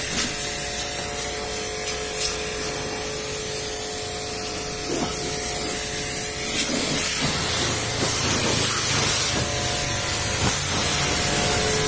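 Pressure washer spraying water onto a car's body, a steady hiss with a steady hum beneath it.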